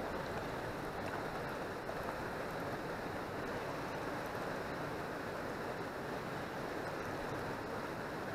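Steady rush of river water along a rocky shore, an even noise without breaks.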